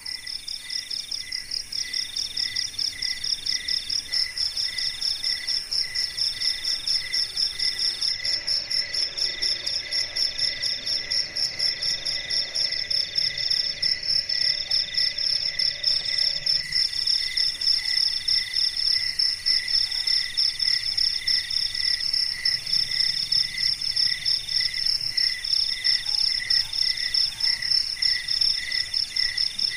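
A night chorus of crickets chirping steadily: a high, evenly pulsing chirp over a lower trill that comes in bouts about a second long, one after another.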